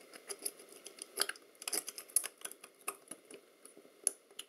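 Small, irregular clicks and taps of the accelerometer's metal cover and housing parts being handled and turned by hand, with about a dozen sharper ticks scattered through.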